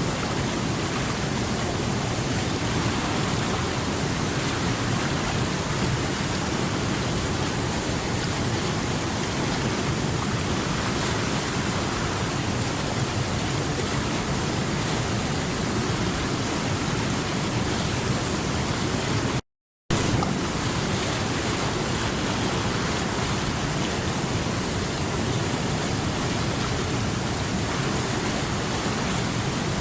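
Water rushing steadily over rocks with a continuous, even sound. It cuts out completely for under half a second about two-thirds of the way through, then resumes unchanged.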